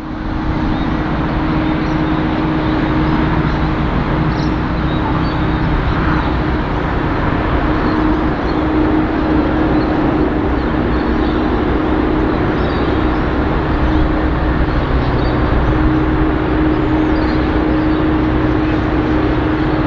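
Diesel-electric freight locomotives at the head of a loaded grain train, approaching with their engines running with a steady, unchanging note.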